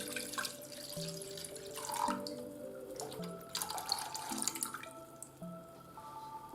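Water running from a kitchen tap into a sink, on and off, with background music playing.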